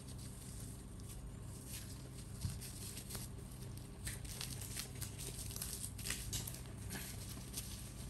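Faint rustling and crinkling of a disposable diaper being fastened by hand, with a few small clicks, over a steady low hum.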